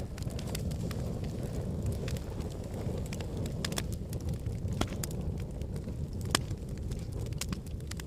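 Fire crackling in a fireplace: sharp, irregular pops and snaps over a steady low rumble of flames, with one louder pop about six seconds in.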